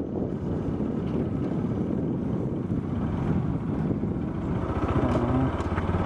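Motorcycle engine running as the bike rides along, with some wind on the microphone; near the end the engine settles into a steadier, more even note.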